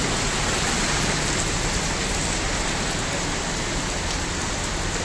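Rain falling steadily onto standing floodwater, an even hiss with no breaks.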